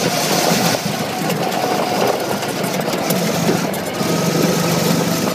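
Go-kart's small engine running steadily while the kart drives along, a continuous low hum under a noisy wash.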